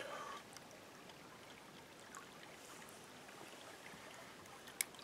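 Faint steady running water of a small trout stream, with a few light ticks and one sharp click near the end.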